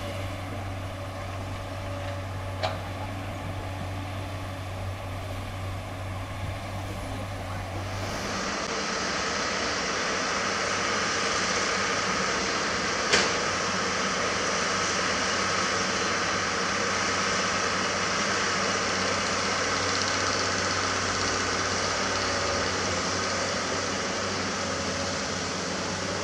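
Diesel engine of a dump truck running steadily: a low hum at first, turning louder and fuller about eight seconds in as the truck drives along a dirt haul road. Two sharp clicks, the louder one about thirteen seconds in.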